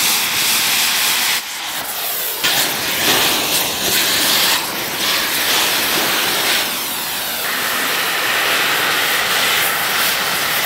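QCC 4900 Series iron-powder oxy-fuel cutting torch hissing steadily as it cuts through steel and cast iron. The hiss changes character abruptly about a second and a half in, again about a second later, and once more near seven and a half seconds.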